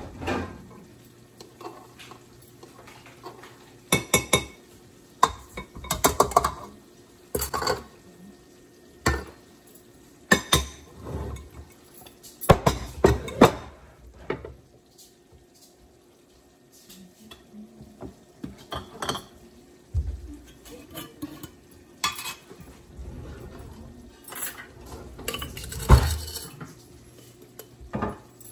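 Measuring spoons and scoops clinking and scraping against glass storage jars and a stainless steel stand-mixer bowl while dry ingredients are scooped out, in scattered taps and knocks.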